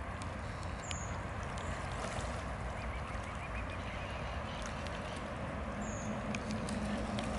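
Mute swans and ducks dabbling and pecking at floating greens on a pond, with soft water noise and small clicks over a steady background rush. Two brief high chirps come about a second in and again near the end, and a low hum joins near the end.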